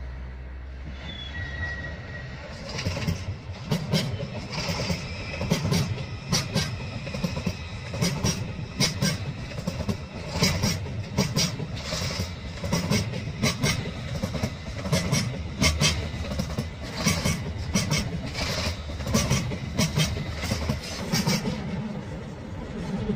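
Train wheels clattering over the rail joints and switches as a long white ICE train passes, a steady clickety-clack of clicks and low thumps over a rumble that sets in about two seconds in and eases off near the end.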